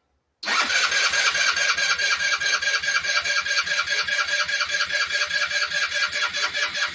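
Electric starter cranking a freshly rebuilt GY6 150cc single-cylinder scooter engine, beginning about half a second in: an even, rhythmic chugging with a whine on top, the engine turning over without catching on its first start after the top-end rebuild.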